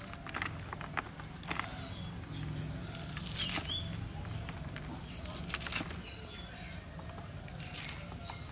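Fresh spinach leaves being cut by hand with a small knife, giving irregular crisp snaps and leafy rustles. Short high bird chirps sound now and then in the background.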